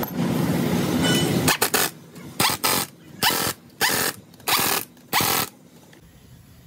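An impact wrench runs on a wheel's lug nuts in a series of short bursts, about one every two-thirds of a second, as the refitted front wheel is tightened down. Before this there is a steady noise that stops about a second and a half in.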